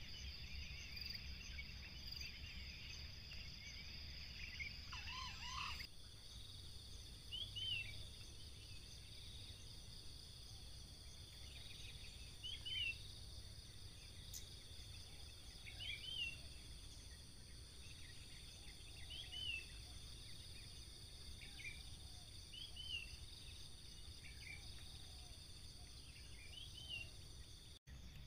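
Insects buzzing steadily at a high pitch, with a bird giving a short, high call over and over, about once every three seconds.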